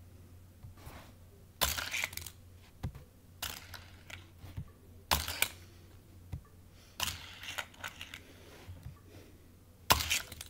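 A Hot Wheels die-cast toy car sent through a small plastic track set again and again, each run a short clatter of plastic and metal clicks, about five runs in all.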